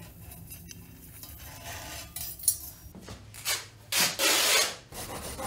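A cloth shop rag being handled and shaken out: two swishes of cloth, the louder one about four seconds in. Before that, faint clinks of the steel head tube reamer-facer being drawn out of the head tube.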